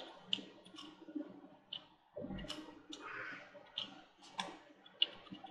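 Faint, irregular clicks and light scraping of someone writing, a few clicks a second with uneven gaps and a soft scratchy stretch about two to three seconds in.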